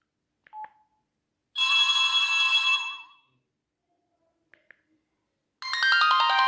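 Sony Ericsson J110i mobile phone playing ringtones through its small speaker. About one and a half seconds in, a short electronic tone passage sounds for over a second. Near the end, another ringtone starts with fast runs of stepping notes, and faint clicks fall in the gaps between the two.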